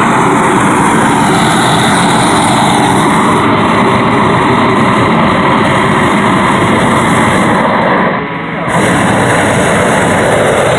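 Loud, steady roar of hot air balloon inflation equipment blowing into the balloon's envelope while it is inflated on the ground. It drops off briefly about eight seconds in, then comes back.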